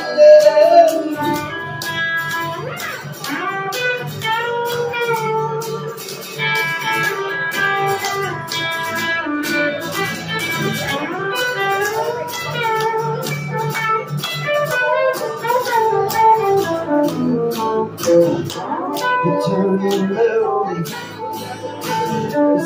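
Electric guitar playing a lead solo with string bends over a strummed acoustic guitar, amplified and live.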